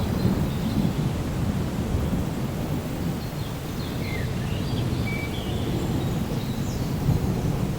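Steady rainfall with a low rolling rumble of thunder underneath that eases off and swells again. A few faint, short high chirps sound over the rain.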